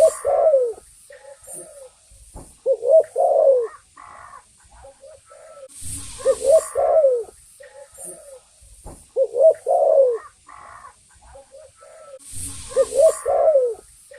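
Spotted dove (tekukur) cooing: repeated phrases of low coos, a new phrase about every three seconds, with a brief hiss of noise at the start of some phrases.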